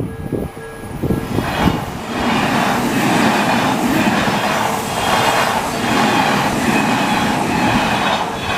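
An Odakyu Odawara Line train passing over a level crossing, its wheels clattering rhythmically over the rail joints. The crossing's warning bell rings at first and is drowned out by the train about a second in.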